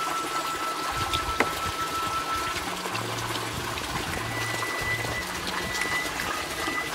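Steady trickle of running water, under background music with low held notes. There is a single light click about a second and a half in.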